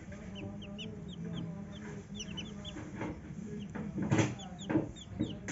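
Newly hatched chicks peeping: many short, high, falling cheeps, with a broody hen clucking low. Two louder knocks come about four seconds in.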